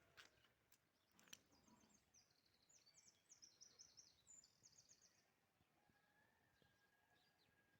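Faint small songbird singing a quick run of high chirps for about four seconds, against quiet outdoor background, with a couple of soft clicks near the start.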